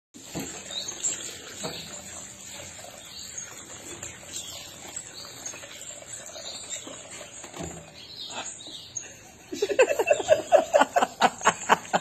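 African grey parrot bathing in a sink: water splashing and trickling, with soft chirps. Near the end, a quick run of laughter, about five pulses a second.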